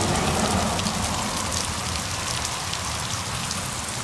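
Heavy rain pouring down: a steady hiss of raindrops with a fine crackle of drops striking the ground and surfaces.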